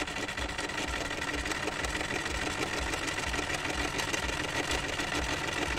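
Chaika 144A electric sewing machine running steadily, stitching a decorative seam through fabric.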